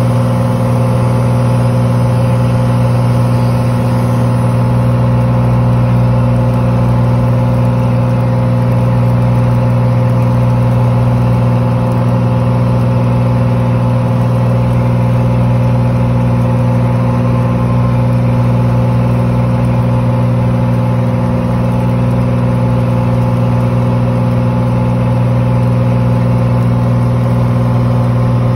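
Single-engine Cessna's piston engine and propeller at full power during takeoff and climb-out, heard inside the cabin as a loud, steady drone.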